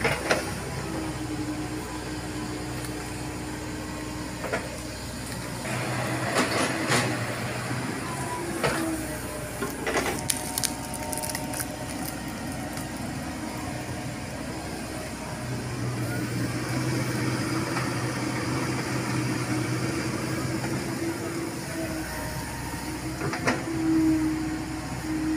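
Komatsu PC70 hydraulic excavator digging a trench: its diesel engine runs steadily, rising in strength for a few seconds at a time as the hydraulics take load, with several sharp knocks as the bucket works the soil.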